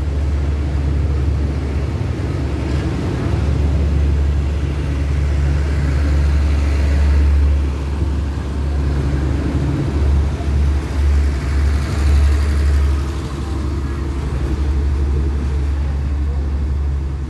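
Passenger coaches of a State Railway of Thailand rapid train rolling past close by, a steady low rumble of wheels on the rails that eases off near the end as the last coach goes by.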